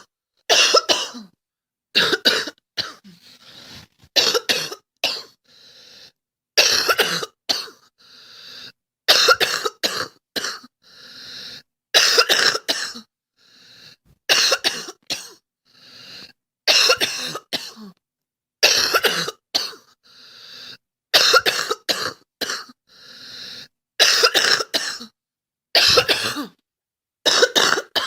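A girl coughing over and over: bouts of two or three coughs come about every two seconds, with a fainter drawn-in breath between bouts.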